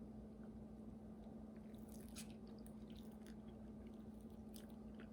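Faint biting and chewing of a soft fish-shaped ice cream sandwich, a few small clicks and squishes, over a steady low hum.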